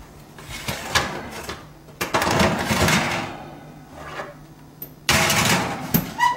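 Oven door opened and a metal sheet pan handled and slid onto the oven rack: a few knocks, two stretches of metal scraping, and a ringing metal clank near the end.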